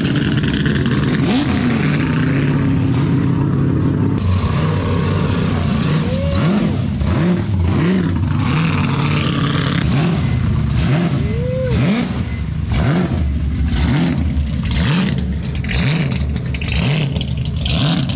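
Car engine revving hard, its pitch rising and falling again and again, about once a second for much of the stretch. Sharp cracks come through in the second half.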